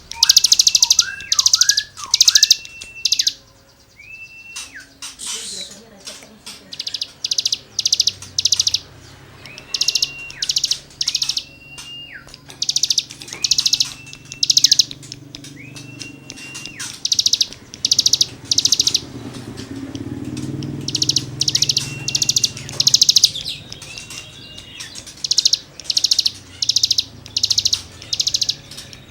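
A cigun songbird singing loudly in full song: bursts of fast, rasping buzzy trills alternating with short high whistles that drop off at the end, repeated over and over.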